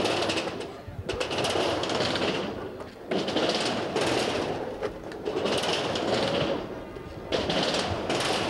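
Skateboard wheels rolling across a halfpipe ramp, the rumble swelling and fading about every two seconds as the rider carves back and forth between the walls, with a sharp knock at some of the turns.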